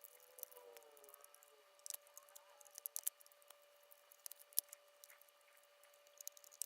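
Faint, scattered small clicks and light handling noises of wire connectors being pushed into a robot vacuum's circuit board, over a faint steady tone.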